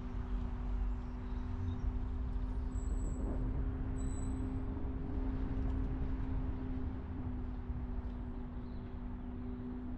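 Car being driven: steady engine hum and road-noise rumble. Two brief high chirps come about three and four seconds in.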